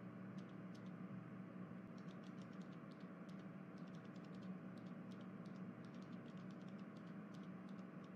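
Faint steady low hum with soft, irregular clicking scattered through it, several clicks a second.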